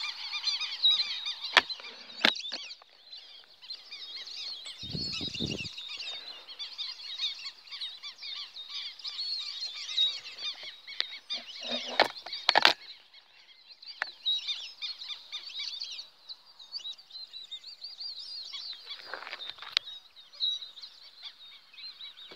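Many birds calling at once, a dense chorus of chirps and whistles. About twelve seconds in comes one sharp, loud crack, the hunter's shot at the ducks. A few fainter knocks come earlier.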